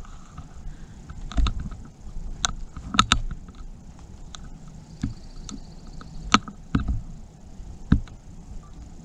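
Footsteps on dry leaf litter, twigs and loose rock: scattered sharp cracks and scuffs, irregular and a second or so apart, the loudest about a third and two-thirds of the way through.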